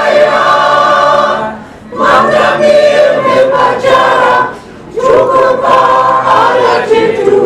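Mixed choir of men and women singing, in sung phrases broken by short pauses about two seconds and five seconds in.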